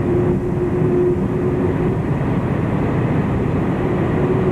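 Cabin noise inside a Boeing 747-400 taxiing on the ground after landing: a steady low rumble with a steady hum that fades out in the middle and comes back near the end.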